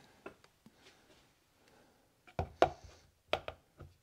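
Workshop handling knocks: small screws set down with light clicks on a wooden workbench, then a few sharper knocks from a little past halfway as the metal groomer gearbox housing is tipped into a plastic bowl to drain its oil.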